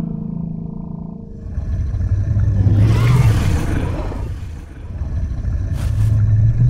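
Deep rumbling whoosh of a magical vortex sound effect, swelling up twice. A steady low hum fades out about a second in.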